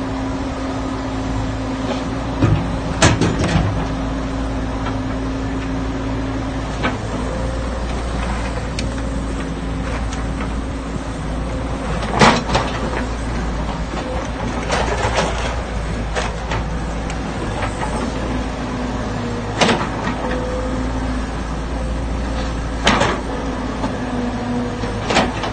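Diesel excavator running steadily under load, with a hum from its hydraulics that shifts in pitch as it works. Sharp metallic clanks of the bucket come every few seconds, about seven in all, the loudest near the middle.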